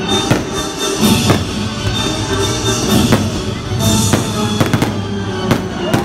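Music with drums playing for a fireworks show, with sharp fireworks bangs scattered through it, several in quick succession near the end.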